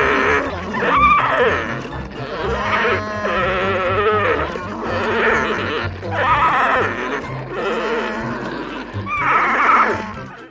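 Alpacas calling, a series of pitched cries repeated every second or two, over background music.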